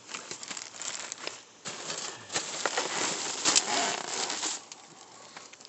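Plastic trash bags crinkling and rustling as a gloved hand rummages through them, in a run of sharp crackles that dies down near the end.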